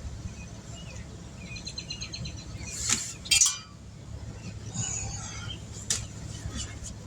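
Birds chirping over a steady low hum, with two short, sharp hissing bursts about three seconds in and a click near six seconds.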